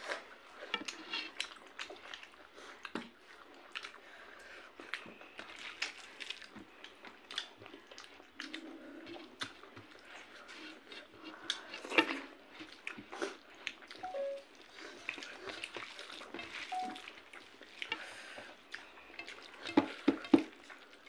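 Eating by hand from a steel plate: fingers mixing rice and chicken gravy make soft wet sounds, with many small clicks of hand and food against the metal and some chewing. A few louder clicks come about halfway through and near the end.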